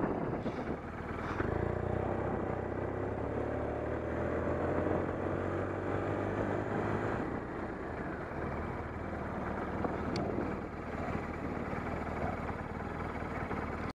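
BMW motorcycle engine running under way, rising in pitch as it accelerates during the first half, then holding steady, with wind and road noise.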